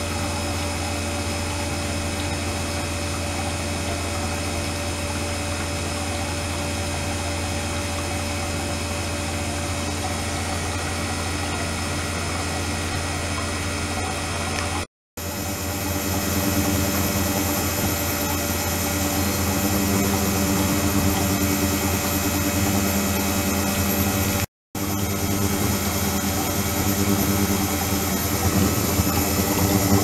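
Ultrasonic cleaning tank running with its liquid-circulation pump: a steady low hum. It cuts out briefly twice and is louder and fuller after the first break.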